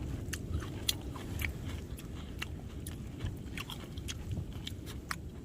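A person chewing a mouthful of spicy sea-snail and minari salad close to the microphone, with scattered small crunches and clicks over a low steady rumble.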